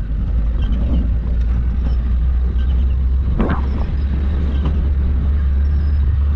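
Steady low engine and road rumble heard from inside the cab of an old vehicle driving along a rough dirt track, with light rattles and a short squeak a little past halfway through.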